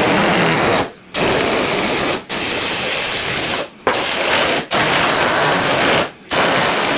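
Cordless impact driver hammering screws into wooden siding boards, in six bursts of about a second each with short pauses between.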